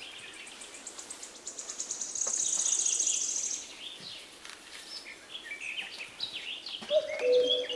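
Birds chirping. A fast, high-pitched trill runs from about half a second in for some three seconds, and a low, steady call begins near the end.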